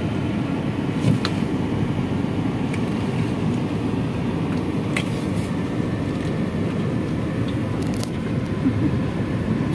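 Inside a moving car: steady low road noise from the engine and tyres while driving, with a few faint clicks.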